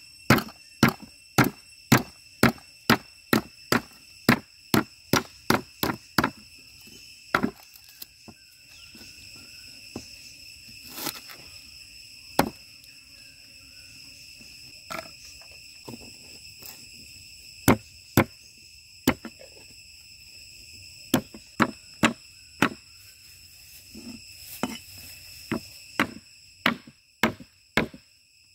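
Large knife chopping lemongrass stalks on a wooden chopping board: sharp knocks about two a second for the first several seconds, then scattered single chops, coming closer together again near the end. Insects keep up a steady high buzz underneath.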